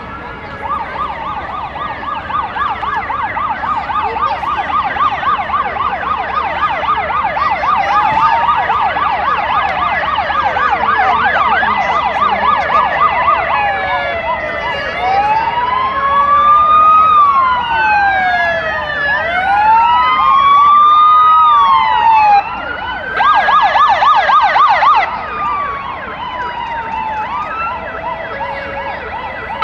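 Several fire engine sirens sounding together, getting louder as the engines approach. A fast warbling yelp runs through the first half. From about halfway, several slow rising-and-falling wails overlap, with short returns to the fast yelp.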